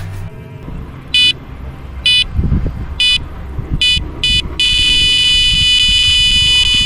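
Electronic carp-fishing bite alarm sounding: five short beeps about a second apart, then one continuous tone for about three seconds that cuts off suddenly, the signal of line being pulled off the rod. Low rumbling noise runs underneath.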